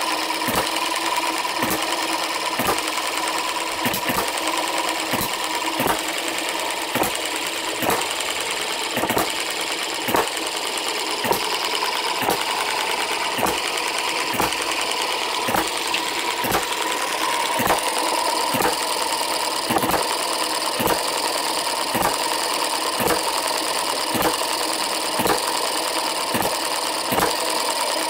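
Microcosm/Eachine M90 model hit-and-miss engine running, its regular sharp clacks about one and a half a second over a steady whine. With softer springs fitted, it is firing at about 45 to 48 hits a minute.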